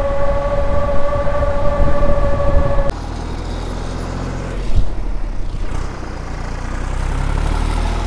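Riding an electric bike: wind buffeting the microphone over a steady whine from the 750-watt hub motor. The whine cuts off abruptly about three seconds in, leaving a steadier low rush of wind and tyres.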